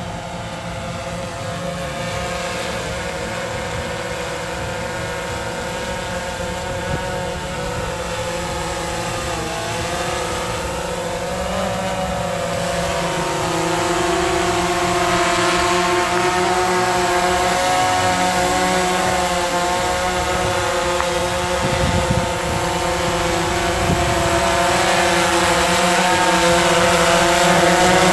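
DJI Phantom 3 Professional quadcopter's four motors and propellers whirring in flight: a steady buzz of several overlapping tones that waver slightly, growing louder through the stretch.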